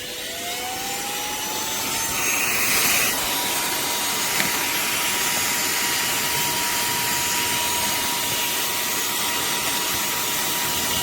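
Cordless handheld vacuum motor spinning up with a rising whine, then running steadily at full speed with a constant whine over the rush of air suction.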